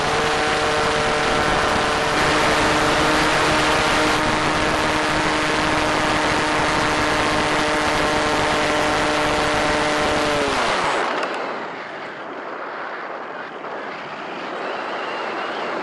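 Electric motor and propeller of a Multiplex EasyGlider Pro RC glider, heard from on board, running with a steady whine. About eleven seconds in, the motor is cut and the whine winds down and stops, leaving wind rushing past the airframe as it glides.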